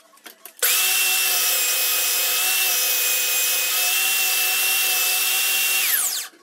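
Stationary belt sander running with a steady whine while a small wooden block is sanded against its belt. It starts abruptly about half a second in, and near the end the whine falls in pitch as the motor winds down.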